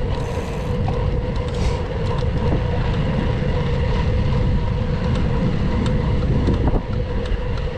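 Wind rushing over the microphone and the rolling noise of a gravel bike being ridden on a road, with a faint steady hum and a few light ticks.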